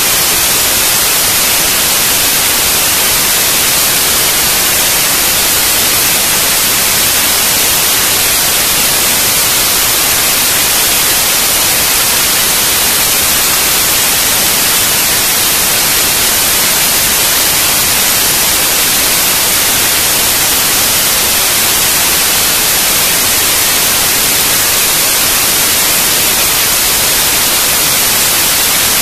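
Loud, steady white-noise static hiss with no other sound: no taps, clicks or dough handling can be heard under it.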